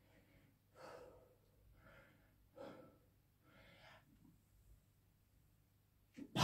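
A man breathing hard during a long, high-rep set of barbell squats: four faint breaths about a second apart, then a louder breath right at the end.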